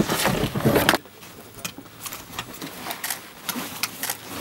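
About a second of loud rushing noise that cuts off suddenly, then rustling fabric and irregular clicks of buckles and straps as a soldier's camouflage backpack is rummaged through.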